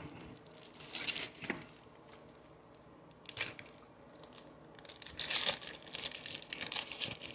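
Plastic-foil wrapper of a trading-card pack crinkling and tearing as it is opened by hand, in three bouts: about a second in, briefly around the middle, and a longer stretch near the end.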